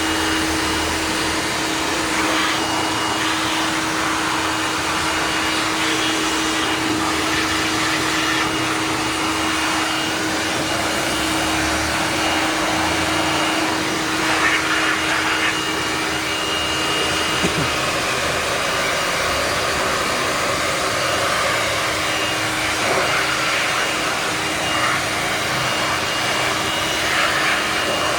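Handheld electric air blower running steadily, with a constant motor hum, blowing dust and dirt out of a window-type air conditioner.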